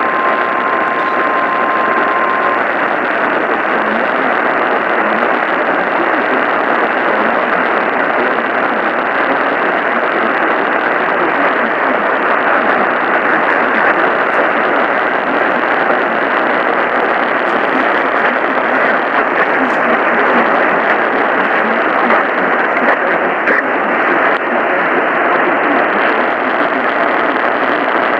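A steady emergency alert tone near 1 kHz heard over distant AM radio stops about two seconds in, leaving a steady rushing hiss of AM reception static.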